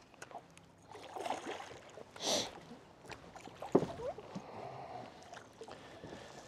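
A hooked bass splashing and thrashing at the water's surface as it is reeled up to the boat, with a splash about two seconds in and a sharp knock, the loudest sound, a little later.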